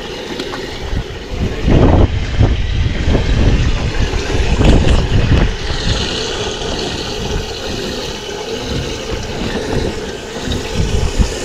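Wind buffeting the microphone over choppy water lapping around a small boat, with strong gusts about two and five seconds in.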